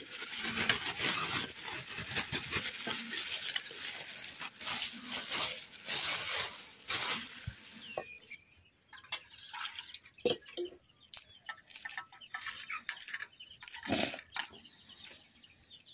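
Black plastic bag crinkling and rustling as fish pieces are tipped out of it into a steel bowl, then wet hand-washing of the fish pieces with scattered clicks and light knocks against the bowl.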